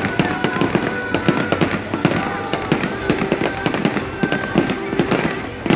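Fireworks display: a dense, continuous barrage of bangs and crackling pops.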